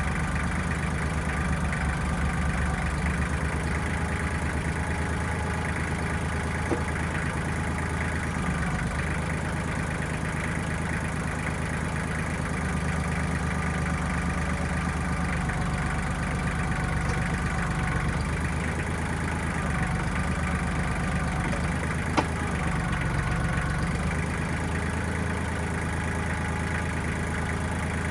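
1995 Kubota backhoe's diesel engine running at a steady speed, with no revving. Two sharp clicks stand out, one about a quarter of the way in and a louder one about three quarters through.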